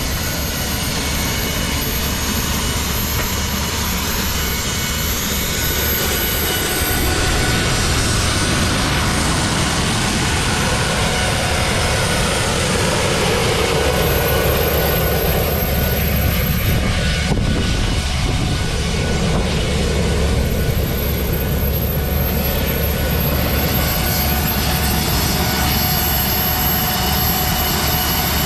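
Rover 1S60 gas turbine on a homemade garden tractor running steadily under load while the tractor pulls a rototiller through soil: a steady high whine over a loud rush.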